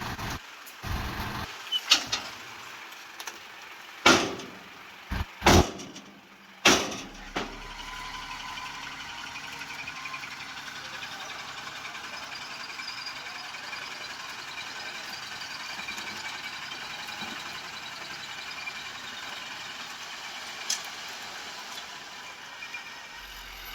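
Heavy equipment engine running at a work site, with about five loud sharp bangs in the first seven seconds, then a steady running sound.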